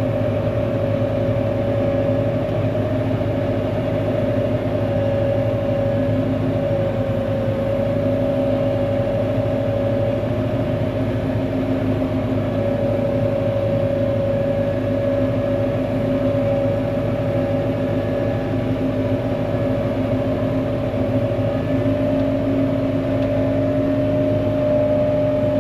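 Engine of a ULV mosquito fogger running steadily at constant speed while spraying, an even drone with a steady whine over it.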